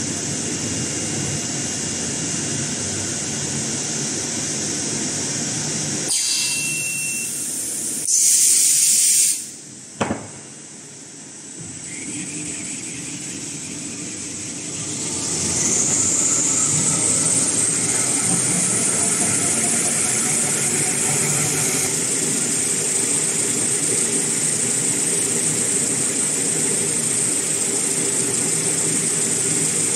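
Toilet paper and kitchen towel making machine (CIL-SP-C) running with a steady mechanical hum. About eight seconds in, a loud hiss lasts about a second. A little later the sound drops with a click. From about twelve seconds the machine speeds up, with a whine rising in pitch until about twenty-two seconds, and then it runs steadily.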